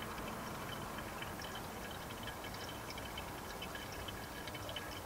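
Faint trickling and dripping of old brake fluid being pushed by a pressure bleeder out of an opened rear bleed nipple, through a hose into a plastic catch bottle, over a steady low hiss.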